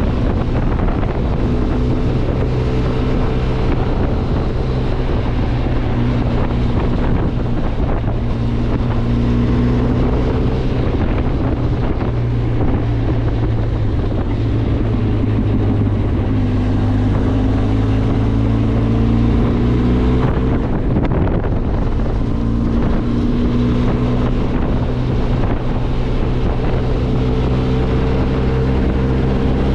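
Benelli TRK 502X motorcycle's parallel-twin engine running while riding, its revs rising and falling gently, with wind buffeting the microphone.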